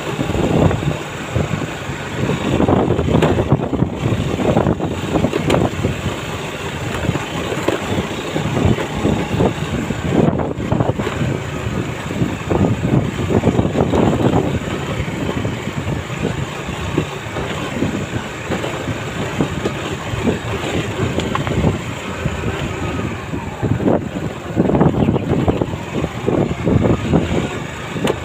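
A vehicle travelling along a rough dirt road, its engine running with an uneven noise that rises and falls throughout.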